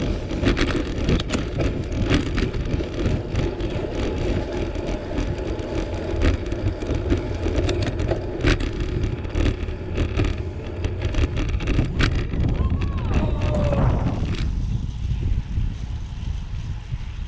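Wind buffeting a handlebar-mounted action camera's microphone, with low road rumble and scattered clicks and knocks from a road bicycle riding on tarmac. About fourteen seconds in the noise drops to a quieter, thinner wind hiss.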